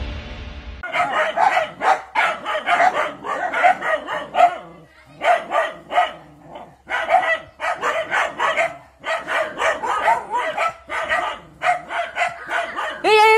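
A pack of dogs barking in rapid, overlapping volleys, the aggressive alarm barking of dogs holding a snake at bay. A music jingle cuts off in the first second.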